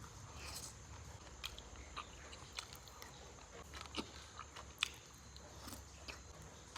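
A person biting and chewing meat close to the microphone, with scattered short wet clicks of the mouth and a sharper click a little under five seconds in.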